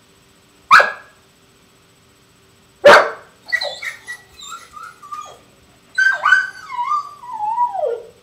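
Weimaraner barking sharply twice, then yelping in short cries and breaking into a long whine that slides down in pitch: the distress calls of a dog with separation anxiety.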